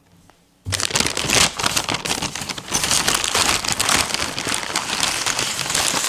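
Brown paper takeaway bag crinkling and rustling as it is handled, starting suddenly about a second in and continuing as a dense crackle.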